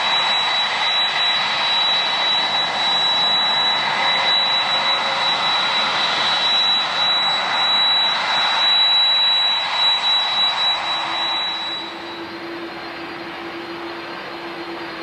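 Jet airliner engines running: a loud, steady rush with a high-pitched whine. About twelve seconds in the whine stops and the sound drops to a quieter, steady noise with a low hum.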